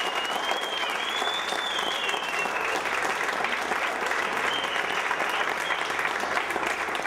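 A group clapping, with voices and laughter mixed in. A high wavering sound rides above the applause for the first two to three seconds.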